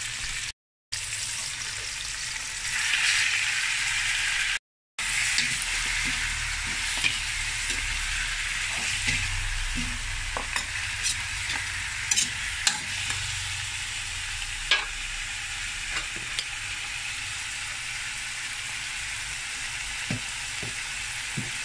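Onions, tomatoes and garlic sizzling in oil in a metal wok while a spatula stirs and scrapes them. From about halfway through, raw pork ribs go into the pan and are stirred in, and the spatula clicks against the metal many times. The sound drops out twice, briefly, near the start.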